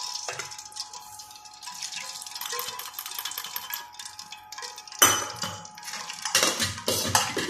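Metal kitchen utensils clinking and knocking against a kadhai, with a sharp knock about five seconds in and a burst of clatter near the end.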